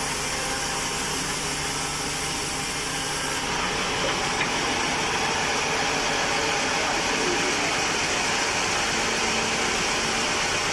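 Sawmill machinery running steadily as a dense mechanical noise, which shifts in tone about three and a half seconds in.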